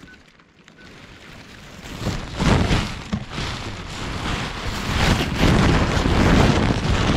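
Loud rushing and rustling on the camera's microphone, starting about two seconds in and swelling in gusts: tall grass and wind brushing against the camera as it is moved about.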